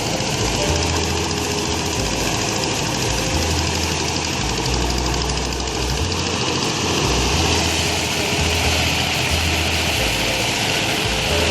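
A steady engine-like mechanical running noise with no clear rhythm, and irregular low rumbling underneath.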